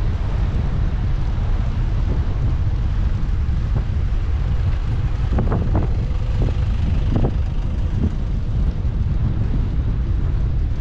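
Wind buffeting a GoPro 8's microphone while riding a bicycle along a paved promenade, a steady low rumble with tyre noise under it. A few short knocks come about halfway through.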